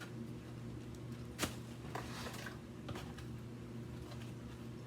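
Plastic bubble wrap being handled, rustling and crinkling with a few sharp crackles, the loudest about one and a half seconds in.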